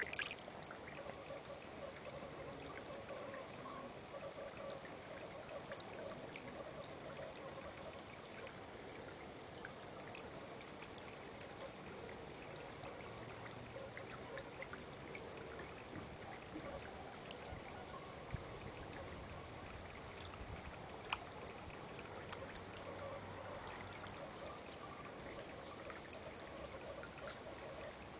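Water pouring steadily into a koi pond, with a few small splashes at the surface.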